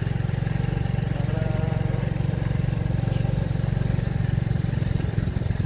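Motorcycle engine running steadily under way, close to the microphone, a fast even putter with no change in speed.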